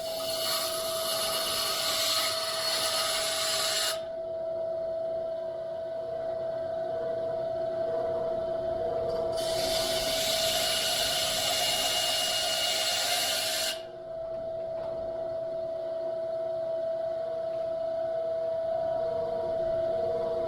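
Bandsaw running with a steady hum while it cuts through the metal casting of an Ertl 8RT toy tractor. There is a loud cutting rasp for the first four seconds and again from about nine to fourteen seconds in, and the blade runs free between the two cuts.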